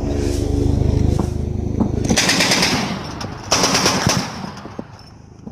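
Truck-mounted heavy machine gun firing in rapid automatic bursts: a long burst for about two seconds, then two short, louder bursts about a second and a half apart, dying away near the end.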